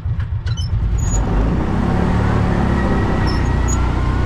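Kawasaki Mule 3010's V-twin engine pulling the utility vehicle along, getting louder about a second in and rising steadily in pitch as it accelerates, then holding speed.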